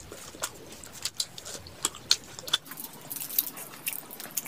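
Close-up eating sounds: biting into a piece of fried fish, then chewing rice and fish curry eaten by hand. Irregular crisp clicks and wet mouth smacks.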